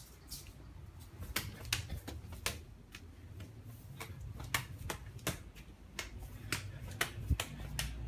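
Sharp, irregular clicks and taps, about two to three a second, over a faint low steady hum: footsteps on a tiled floor together with handling of the phone.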